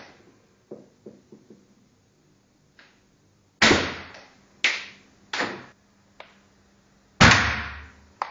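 Shots from a WE Glock 33 Advance gas blowback airsoft pistol firing 6 mm BBs: four loud sharp cracks with a short fading tail, the first about three and a half seconds in, the next two about a second apart, the last near the end. A few faint ticks come earlier.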